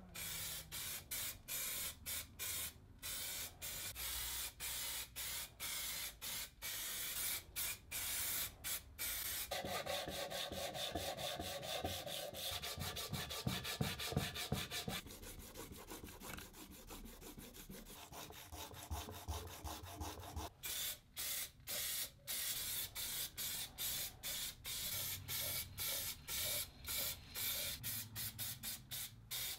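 An aerosol spray can of filler primer sprays in short hissing bursts. About ten seconds in, this gives way to hand-sanding, a sanding sponge rubbing back and forth over the painted sheet-metal housing. After about twenty seconds, short spray-can bursts start again.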